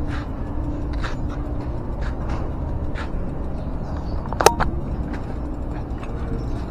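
Bicycle riding slowly over concrete: steady wind and road rumble, light clicks about once a second, and one sharp click with a brief ring about four and a half seconds in.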